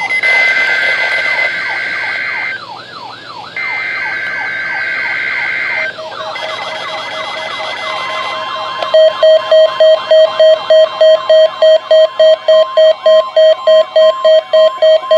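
NOAA Weather Radio warning alarm test, the steady 1050 Hz attention tone, setting off weather alert receivers: a siren-like sweep repeating several times a second, two-tone blasts that stop and restart, and from about nine seconds in a loud beep pulsing about three to four times a second over the steady tone.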